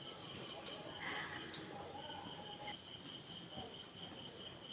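Faint, regular chirping of insects, about four high-pitched pulses a second, over quiet room noise.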